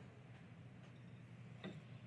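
Near silence: room tone with a steady low hum and a single small click near the end.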